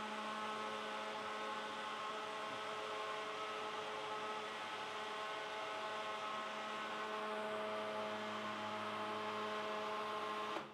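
A steady machine hum made of several constant tones over a faint hiss, holding level without change.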